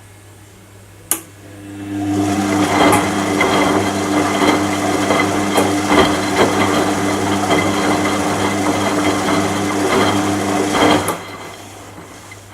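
Washing machine motor running for about nine seconds with a steady whirring tone and irregular clicks, starting just after a single sharp click and cutting off abruptly near the end. A low hum runs underneath throughout.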